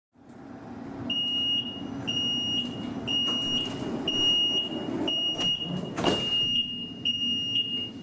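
Light rail car's door-closing warning: a high steady beep sounding about once a second, seven times, while the doors slide shut with a thud about six seconds in. A low steady hum from the car runs underneath.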